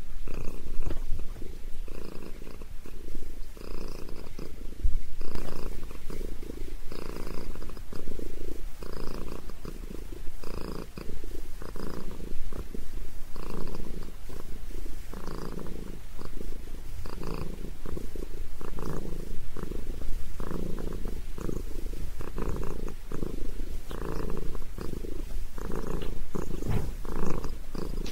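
Orange long-haired domestic cat purring steadily while its head is massaged, the purr swelling and fading with each breath about once a second.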